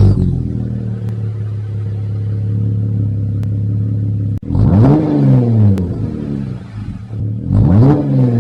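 Jeep Wrangler JL engine idling steadily, then revved twice about three seconds apart. Each rev is a quick rise and fall in pitch.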